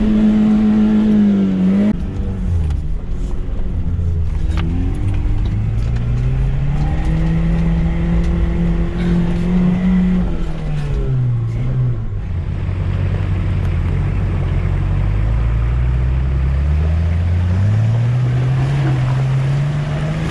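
Off-road 4x4's engine heard from inside the cab as it crawls a muddy track, revving up and easing off several times. A few sharp knocks from the vehicle bumping over the ground come about four seconds in.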